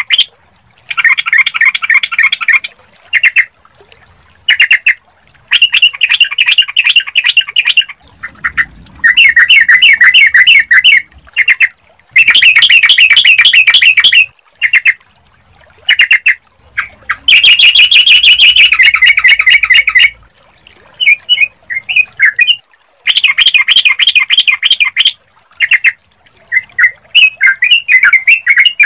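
Yellow-vented bulbul (trucukan) song, loud and close: bursts of rapid repeated chattering notes, each phrase a second or two long, broken by short pauses.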